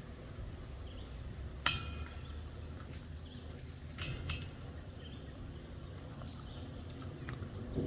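Metal clinks and clanks from a disc golf basket as discs strike it and are pulled out of it: one sharp clank with a brief ring about one and a half seconds in, then a few lighter clicks.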